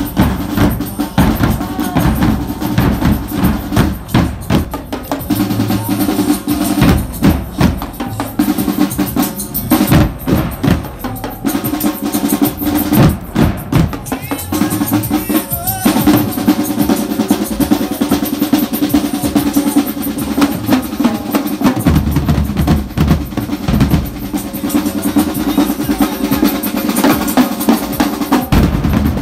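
Youth drum corps playing a cadence on marching bass drums and snare drums: fast snare strokes and rolls over bass drum beats at several pitches, with no break.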